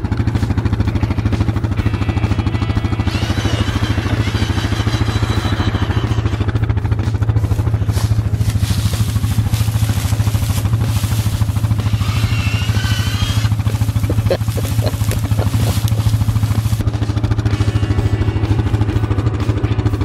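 A vehicle engine running steadily at idle, a constant low hum with an even pulse. Faint, short high warbling sounds come twice, a few seconds in and about twelve seconds in.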